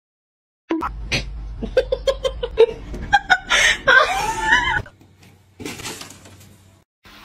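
A person laughing in quick, short repeated bursts, with a louder, higher stretch of sound after it.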